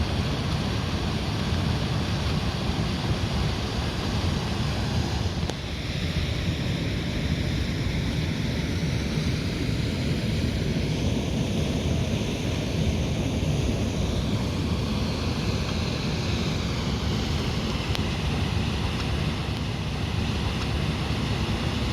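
Steady rushing of falling water from a small waterfall, a dull rumble with a hiss above it.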